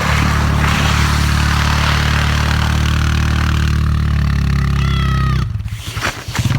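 Four-wheeler (ATV) engine running steadily under a rushing noise, then stuttering and dropping in level about five and a half seconds in before it picks up again. A short high voice call comes just before the dip.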